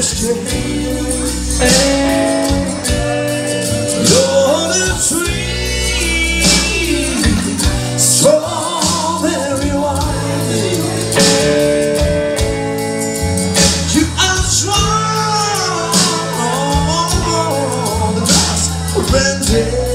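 A man singing a song live into a microphone, accompanying himself on electric guitar, over a full musical backing with a steady bass line.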